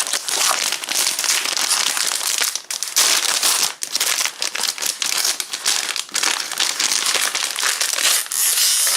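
Plastic packaging of a football trading-card starter pack crinkling and crackling continuously as it is torn open and pulled off, with brief pauses.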